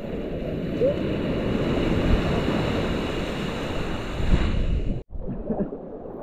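Surf washing on a beach with wind buffeting the microphone; the sound cuts off abruptly about five seconds in, leaving quieter wind and water.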